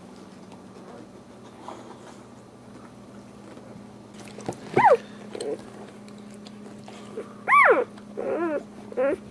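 Newborn boxer puppies crying in high-pitched squeals: a falling cry about five seconds in, a louder cry that rises and falls about two and a half seconds later, then a few shorter wavering cries near the end.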